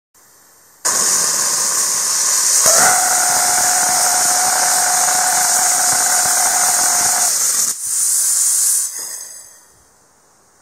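Small amateur liquid rocket engine burning a 70/30 alcohol-water fuel with gaseous oxygen, about 19 N of thrust, on a static test: a loud hiss starts about a second in, and from near three seconds a steady high tone rides on the hiss until about seven seconds. The hiss carries on briefly after the tone stops, then dies away as the engine shuts down.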